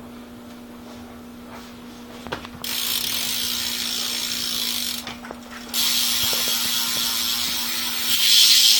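BMX bike rear hub freewheel ratcheting rapidly as the back wheel spins, in two runs of a few seconds each with a short break between them.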